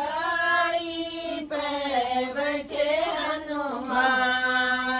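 Women singing a Hindi devotional bhajan without instruments, drawing out long held notes of the refrain.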